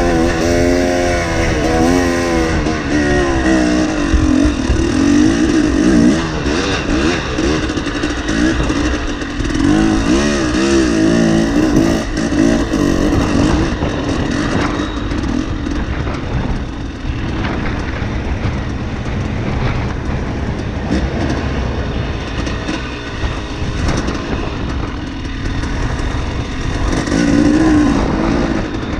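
KTM 300 two-stroke enduro dirt bike engine revving up and down as it is ridden, under wind noise on the microphone. The engine is strongest for the first half and again near the end, easing back in between.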